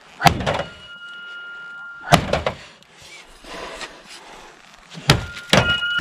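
Heavy blows of a Cold Steel pole axe's steel head striking the sheet-metal body of a wrecked Volkswagen car. Two blows about two seconds apart, then two more in quick succession near the end, each with a clanging hit, and after the first a metallic ring that hangs on for over a second.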